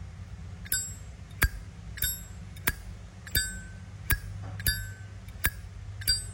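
Silver-plated Zippo lighter's lid flicked open and snapped shut about four times in a row. Each opening gives a short bell-like ring, and each closing is a sharp click. This bell tone comes from a lighter tuned for its sound.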